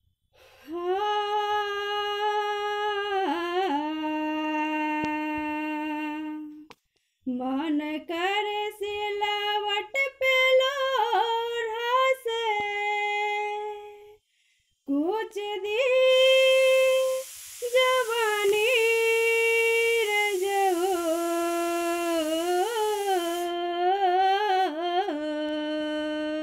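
A woman singing unaccompanied, holding long wordless notes that slide up and down between pitches. She sings in three phrases with short breaks about 7 and 14 seconds in.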